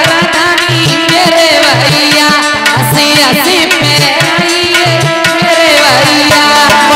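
Indian folk wedding-song (bhat geet) music with hand drums keeping a steady beat about once a second under a wavering melody line.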